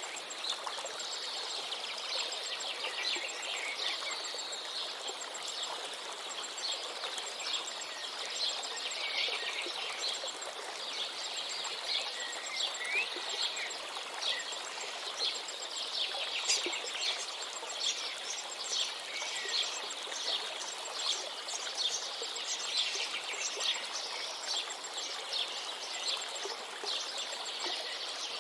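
Steady rush of a flowing river or stream, with many songbirds chirping and trilling over it.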